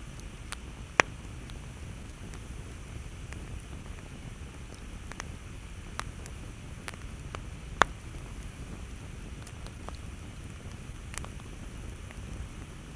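Campfire crackling: sharp irregular pops, the two loudest about a second in and near eight seconds, over a steady low rumble.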